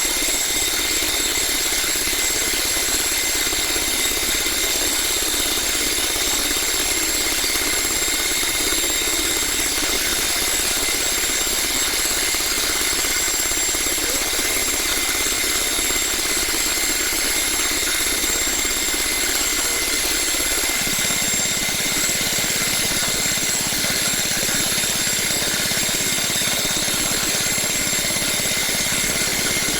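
Small DC hobby motors of a homemade model tractor and drilling rig running steadily, a continuous whine with a steady high tone over a rattling hum. The low part of the hum changes about two-thirds of the way through.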